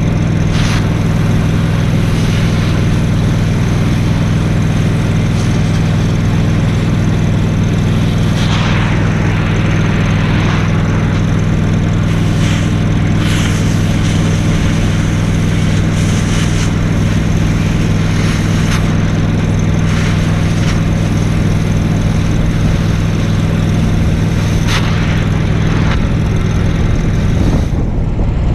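An engine running at a steady speed, a constant low drone. Short hissing bursts come through over it several times.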